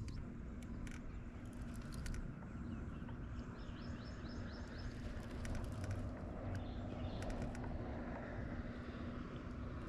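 Outdoor ambience on a lake: a steady low rumble with a faint steady hum, scattered small clicks, and birds chirping a few times in the middle.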